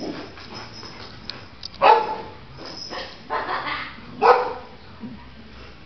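Dog barking, a few short loud barks.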